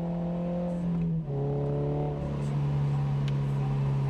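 Car engine pulling under acceleration, its pitch rising a little. About a second in it shifts up a gear: a brief dip and a step down in pitch. It then runs on steadily at the lower pitch.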